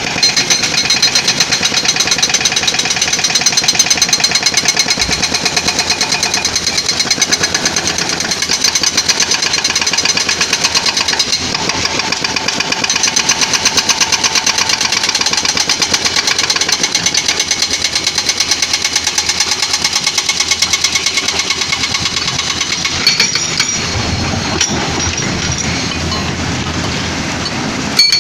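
Excavator-mounted hydraulic breaker hammering rock in a rapid, continuous rattle over the diesel engine. Near the end the hammering eases and the engine is heard more.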